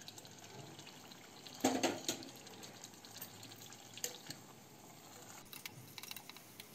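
Melted ghee poured from a steel pan into an aluminium pressure cooker of rice and jaggery, then a steel spoon stirring and clicking against the cooker. A louder clatter comes about two seconds in; the rest is faint.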